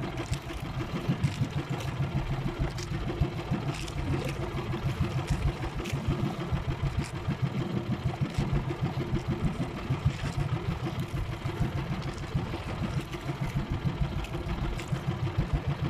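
Small fishing boat's engine running steadily under way, a dense low rumble with occasional short clicks over it.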